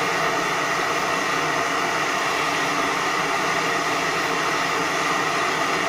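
Gas torch flame running with a steady rushing hiss as it heats a borax-glazed crucible to melt leftover silver and tin into a bead.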